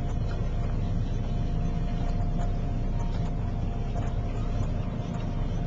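Boat engine running steadily: a continuous low drone with a faint steady whine above it.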